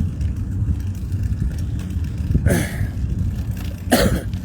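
A man coughing twice, about two and a half and four seconds in, over a steady low rumble.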